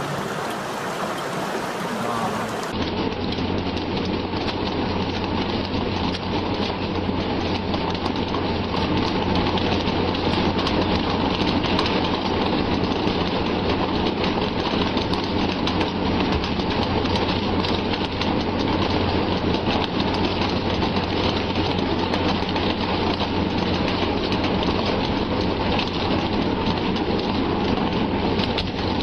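Steady loud rushing of water with a low steady hum underneath; the sound changes abruptly about three seconds in.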